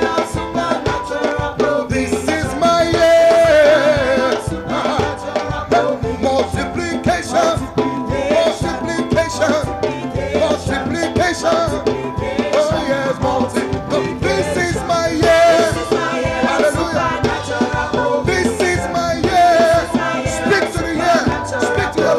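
Live gospel praise song: a band plays with a steady, danceable beat and voices sing along.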